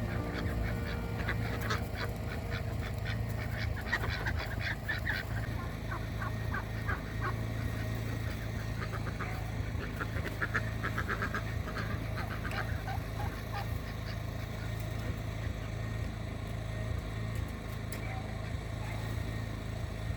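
A group of ducks quacking in rapid runs of calls, busiest in the first few seconds and again about halfway through, over a generator's steady low hum.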